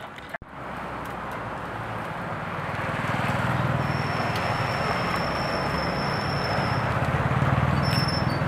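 Motorbike engines and street traffic passing close by, building up over the first few seconds and staying loud, with a thin high steady tone for a few seconds in the middle.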